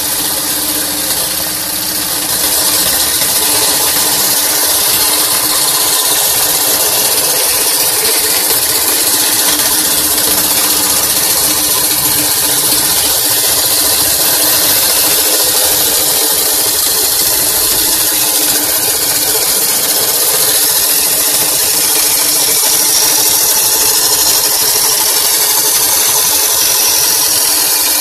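Handheld drill running steadily, spinning a square wooden stick through a 3D-printed pencil-sharpener-style cutter whose chisel blade shaves it round into a dowel: continuous motor whirr with the scraping of wood being cut. Louder from about two seconds in.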